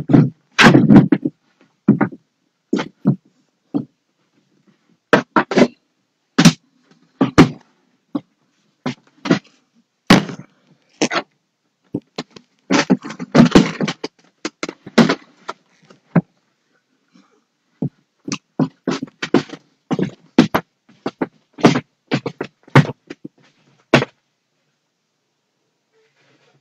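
Irregular knocks, thumps and scrapes of household things being picked up, moved and set down while a floor is cleared for cleaning. They come in short clusters with silent gaps between, busiest about halfway through.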